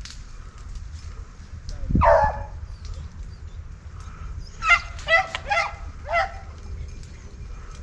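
Rabbit hounds giving tongue on a rabbit's track: one falling bay about two seconds in, then a quick run of about five high, yelping bays a little before the end.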